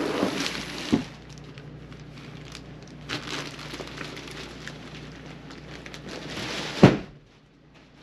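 Rustling of a quilted bedspread and handling noise as an RV bed's lift-up storage platform is raised and set back down. There is a short knock about a second in and a louder thump just before seven seconds, when the platform comes down onto the frame.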